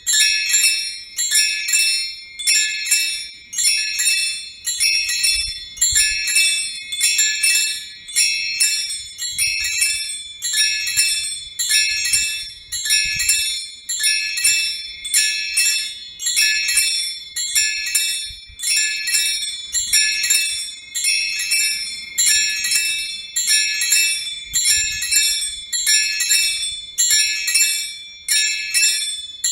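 Small bells of a miniature personal belfry, fixed in place and struck with little chains in a scampanio chime: quick rounds of several high-pitched strokes repeating steadily, a little over one round a second.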